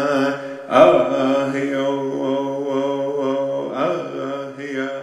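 A voice chanting a Native American prayer song for rain in long held notes over a steady low tone, with a short break just before a second in, fading toward the end.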